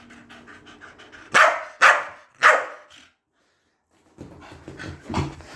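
Pet dog panting, then three loud short barks about half a second apart, followed after a brief pause by more panting and a short low vocal sound.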